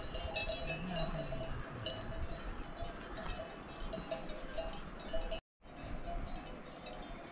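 Bells on grazing cattle ringing and clanking irregularly, several bells overlapping, with a brief break in the sound about five and a half seconds in.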